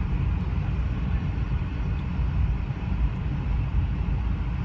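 Steady low rumble of a car driving along a street, heard from inside the cabin.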